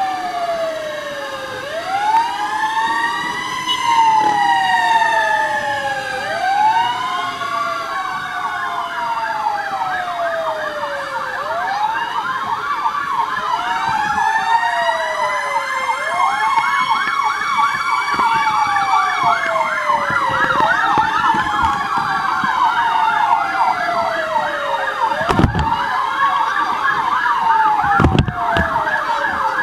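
Several fire engine sirens sounding together: a slow wail rising and falling about every four and a half seconds, joined about eight seconds in by a fast yelping warble. Two dull thumps near the end.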